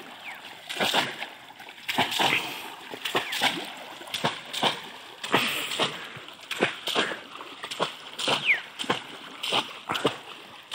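Bamboo cone-shaped plunge baskets lifted and driven down again and again into shallow muddy water, each stroke a sharp splash with water pouring off the basket, about one and a half splashes a second at an uneven pace.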